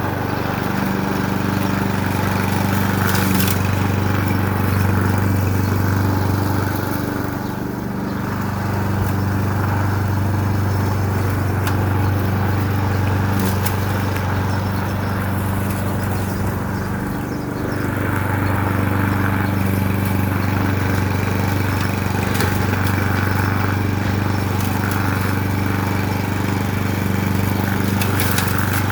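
Mower engine running steadily while cutting down brambles and undergrowth, its note dipping briefly twice, about seven and seventeen seconds in.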